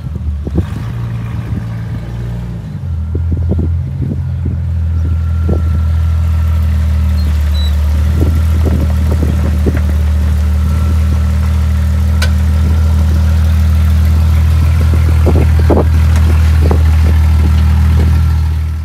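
Engine of a lifted Jeep Grand Cherokee ZJ running while the Jeep creeps along at low speed: a steady low drone that grows louder about three seconds in and then holds, with scattered light clicks over it.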